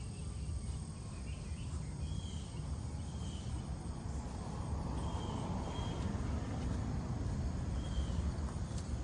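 Outdoor ambience: a steady low rumble with short high chirps repeating about once a second, the sound of an insect or bird, and a broader hiss swelling briefly midway.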